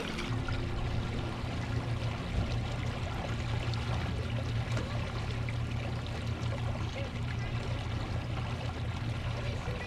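River current rushing steadily around the legs of people wading knee-deep, with a low rumble underneath.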